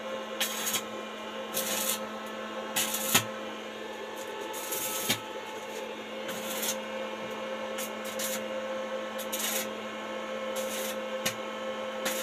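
Short rough rubbing or scraping strokes at uneven intervals, roughly one a second, over a steady low hum.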